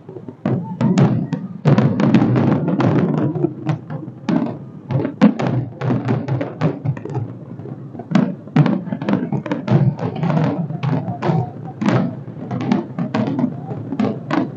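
Fireworks display going off in a rapid, irregular run of sharp bangs and crackles, many each second, with no real pause.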